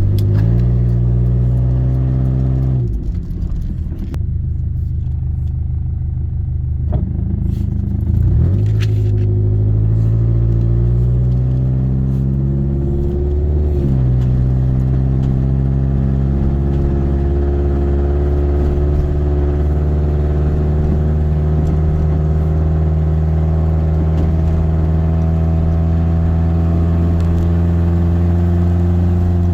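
Honda CR-V engine and road noise while driving: the engine pitch climbs twice, dropping back suddenly each time as the gears change, about three and fourteen seconds in, then holds steady at a cruise.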